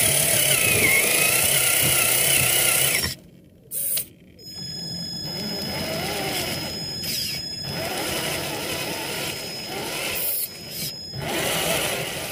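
Traxxas TRX-4 RC crawler's electric motor and gear drivetrain whining, the pitch wavering with the throttle. It drops out for about a second around three seconds in, then carries on quieter.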